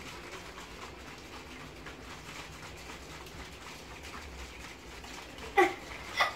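Fizzy orange soda with salt in it sloshing faintly inside a plastic bottle as it is shaken by hand. Two short, sharp, louder sounds come near the end.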